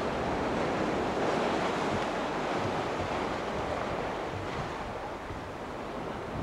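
Sea waves washing and breaking against breakwater rocks, a steady rushing surf, with wind buffeting the microphone.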